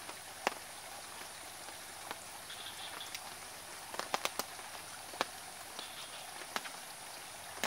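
Steady outdoor hiss with scattered sharp ticks and clicks, a quick cluster of them about four seconds in.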